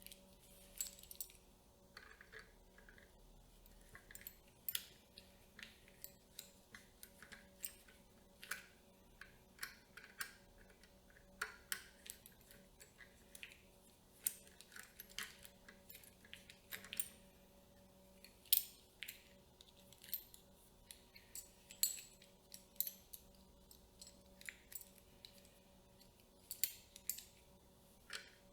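Camera rig accessories being handled and fitted by hand: irregular sharp clicks, taps and small snaps of metal and plastic parts, one or two a second, over a faint steady hum.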